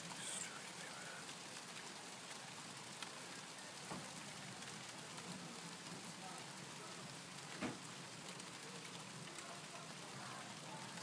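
Rain falling steadily during a thunderstorm, a continuous hiss with a few sharp taps, the loudest about three-quarters of the way through.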